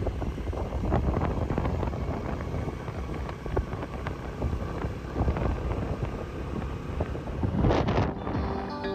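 Wind buffeting the microphone with the rush of a moving scooter and its engine, heard while riding along a road. Guitar music comes in near the end.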